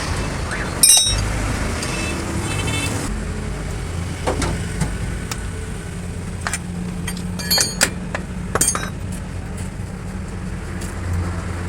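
A few sharp metallic clinks and knocks of metal striking metal, as tools work on truck drive-shaft universal-joint parts. They come about a second in, again around four seconds, and in a quick cluster near the end, over a steady low hum.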